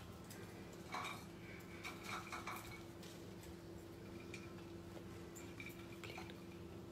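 Faint light taps and clinks of french fries being set on a ceramic plate, a few at a time, over a steady low hum.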